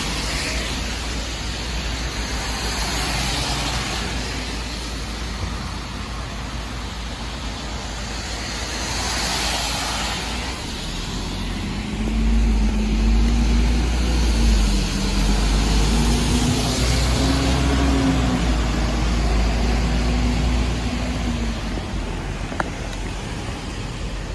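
Road traffic on a rain-soaked street: tyres hiss on the wet road as cars pass in several waves. From about halfway, a heavy vehicle's engine runs close by for around ten seconds with a deep rumble and a wavering hum, the loudest sound in the stretch.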